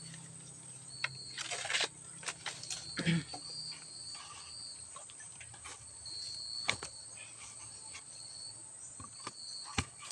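Insects chirping: a steady high drone with shorter trills that come and go. Scattered sharp clicks and knocks, and a low hum that fades about three seconds in.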